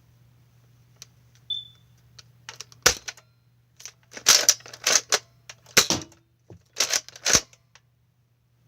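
A Nerf gun being worked and fired: a quick series of about seven sharp plastic clacks in the middle few seconds.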